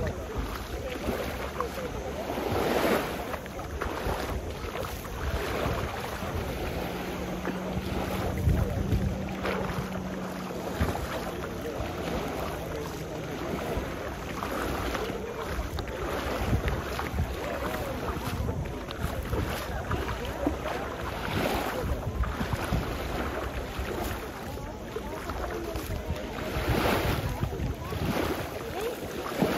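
Wind buffeting the microphone over the wash of waves on the shore, with a few louder swells. A faint, steady low hum is heard for several seconds about a third of the way in.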